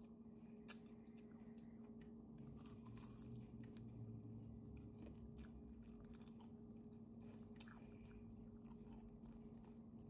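Faint chewing and crunching of fried fish eaten by hand, with scattered small crackling bites. A low steady hum runs underneath.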